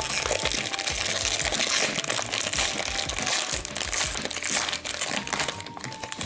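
Plastic wrapper of a Panini Prizm trading card pack crinkling and tearing as it is ripped open by hand.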